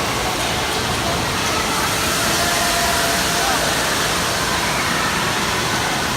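Water park ambience: a steady rush of water from the slides and pools, with faint distant voices.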